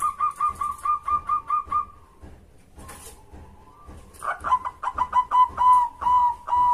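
Zebra dove (perkutut) cooing. A fast run of short, clipped coos ends about two seconds in. After a pause, a second run starts about four seconds in, its notes growing longer toward the end.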